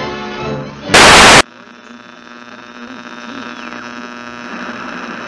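Old radio receiver static and tuning noise. A short, very loud burst of static about a second in, then a steady hum with faint whistling tones, one of which slides down in pitch near the end.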